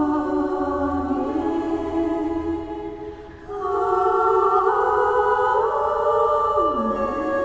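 Choir singing slow, held notes that step from pitch to pitch, with a short break between phrases about three seconds in.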